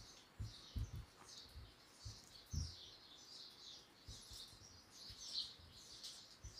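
Faint squeaking of a whiteboard marker in many short, uneven strokes as words are written on the board, with soft low thumps between them.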